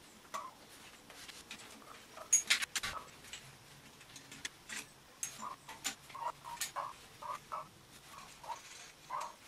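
Metal clicks and knocks of parts and tools being handled while a newly made holder is fitted to the engine for its stand, with a cluster of sharper clanks about two and a half seconds in and short squeaks through the second half.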